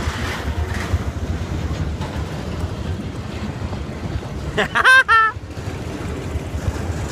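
Steady low rumble and wind buffeting the microphone as a roller coaster train rolls along. About five seconds in, a short high-pitched voice exclamation cuts through.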